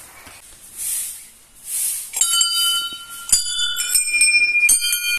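A soft hiss repeating about once a second, then, from about two seconds in, hanging brass temple bells struck one after another, five or so strikes at different pitches, each ringing on.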